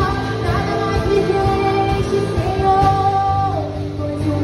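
Portuguese-language Christian worship song performed with a band: a voice singing long held notes over a steady bass.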